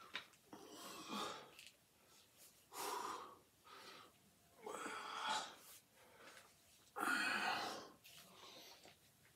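Heavy breathing of a man straining through dumbbell curls: four hard, noisy breaths about two seconds apart.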